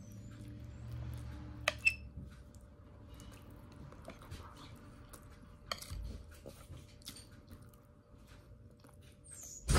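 Metal spoon scraping and clinking against a plate, with a couple of sharper clinks about two seconds in, and close-up chewing and small mouth sounds. A low hum runs under the first couple of seconds.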